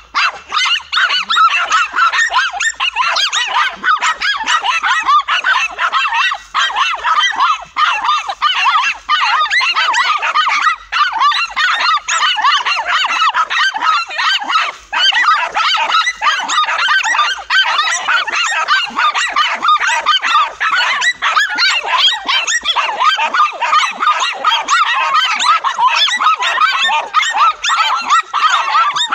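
A pack of dogs barking and yapping at a cornered lizard without pause, many shrill, overlapping yelps in a continuous frantic clamour.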